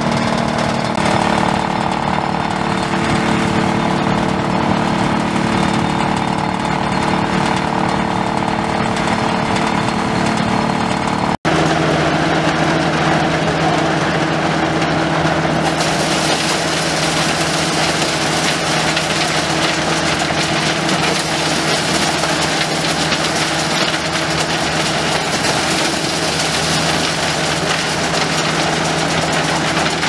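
Antique small-grain thresher running steadily as wheat is fed into it. After a cut, a belt-driven antique corn sheller is powered by an Oliver 77 tractor, both running steadily, and a higher rasping noise joins in about five seconds later.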